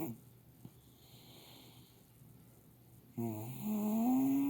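Loud snoring: one snore trails off at the start, then after a pause of about three seconds another long, pitched snore comes in that rises in pitch as it goes.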